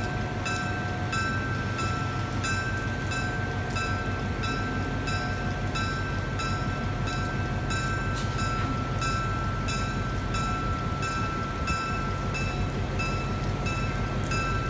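A railroad bell ringing steadily, about one and a half strikes a second, its ring carrying on between strikes, over the even hiss of heavy rain and the low steady rumble of a train standing by.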